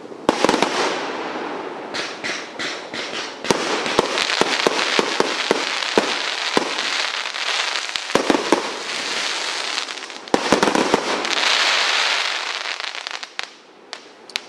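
Primed Pyrotechnics Glittering Prize A & B, a 1.3G single-ignition firework barrage, firing: a continuous run of sharp shots and bursts over a dense crackle of glitter stars. A heavy burst comes about ten seconds in, then it dies away to a few last cracks near the end.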